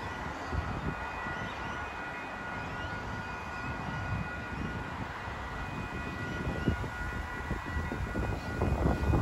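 Wind rumbling on the microphone, gusting harder near the end, with faint steady high-pitched tones in the background.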